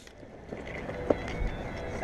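A player running with airsoft gear: an even rustle of clothing, kit and footfalls, with one faint tick about a second in.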